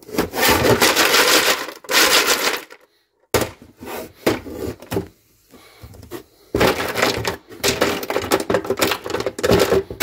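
Ice cubes clattering and crunching against each other and the plastic walls of a refrigerator's ice bin as the bin is handled and the ice moved about by hand. The sound comes in bursts, with a quieter stretch near the middle.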